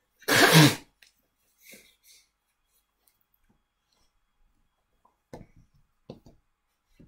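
A man blowing his nose hard into a tissue: one loud, noisy blast about half a second long just after the start. A few faint short sniffs or rustles follow.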